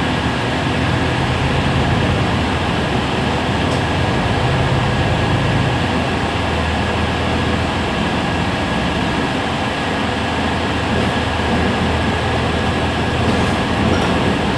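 Heuliez GX 137 city bus standing at a stop with its engine idling, a steady low hum under an even mechanical noise.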